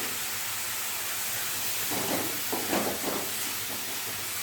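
Bottle gourd pieces sizzling in oil in a pan, a steady hiss, with a few brief scrapes about two to three seconds in.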